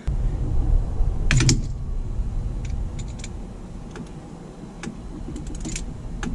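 Scattered light clicks and taps of parts being handled, a cluster about a second in, over a steady low rumble.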